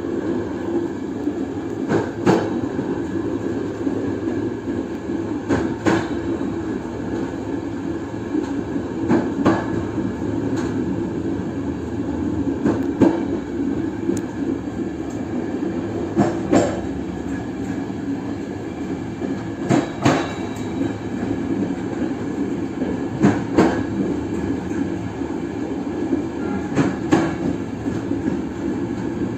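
Passenger train running, heard from on board: a steady rumble of wheels on rail, with a sharp clack every few seconds as the wheels cross rail joints, often in quick pairs.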